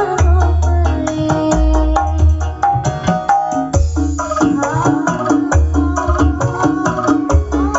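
Recorded music with hand-drum percussion and deep bass notes, played loud through a PA sound system driven by a Hammer P9300 power amplifier into Movex CA18 speakers.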